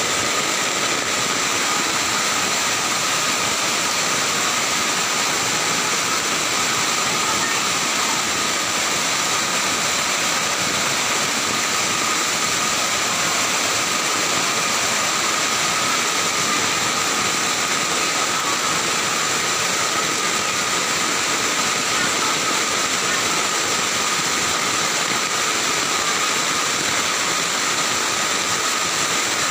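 Fast-flowing floodwater rushing past in a steady, unbroken noise.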